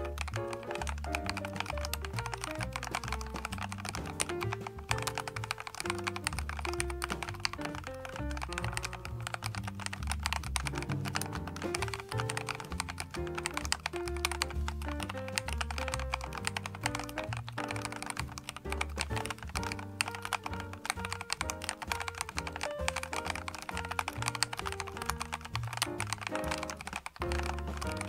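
Fast, continuous typing on a MechLands MC66 65% mechanical keyboard with transparent keycaps, the keystrokes clicking steadily throughout. Background music with a steady bass line plays under it.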